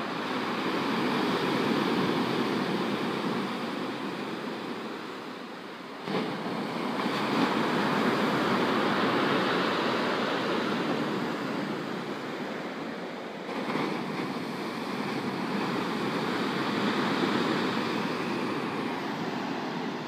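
Rough sea surf breaking on a stony beach: a continuous rushing wash that swells and ebbs, with fresh waves crashing in sharply about six seconds in and again about two-thirds of the way through.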